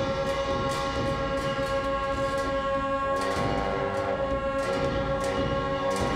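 Tibetan Buddhist ritual music: a pair of gyaling shawms holding one steady, reedy high note over a low drone from dungchen long horns, with regular percussion strikes about two or three times a second.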